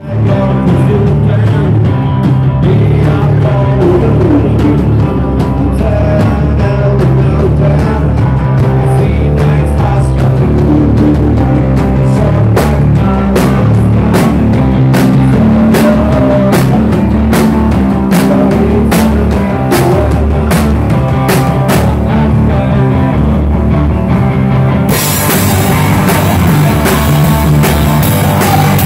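Rock music played live by a band with a drum kit. Sharp drum hits stand out in the middle, and a steady wash of cymbals comes in near the end.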